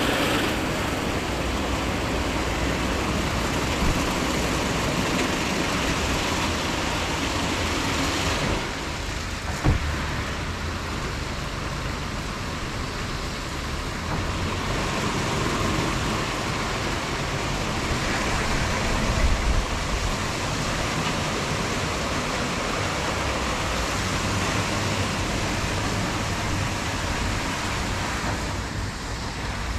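Christ Cadis C17 rollover car wash in its brush wash stage: rotating wash brushes and water spray working over the car, a steady rushing noise whose texture shifts as the brushes move. A single sharp knock sounds about ten seconds in.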